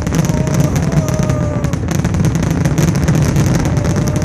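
Fireworks finale barrage: a dense, continuous run of bangs and crackling over a heavy rumble, with a few faint falling whistles.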